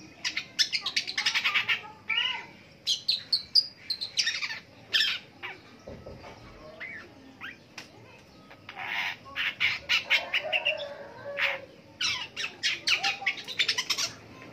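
Long-tailed shrike (pentet) singing: bouts of rapid, harsh chattering notes mixed with short whistled figures, coming in several bursts with brief pauses between them.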